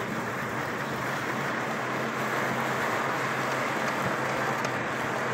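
Steady road noise heard from inside a moving car: tyre noise and a low engine hum as it drives along a town street.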